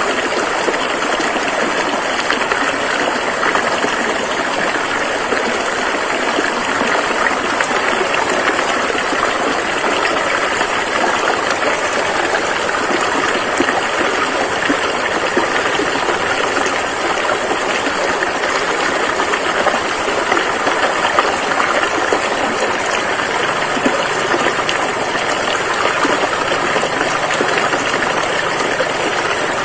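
Flowing river water rushing steadily, an even splashing noise.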